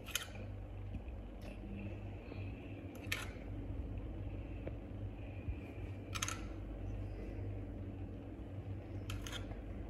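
A metal spoon clinking against a small glass jar of tamarind chutney, four short clinks about three seconds apart as the chutney is scooped out, over a steady low hum.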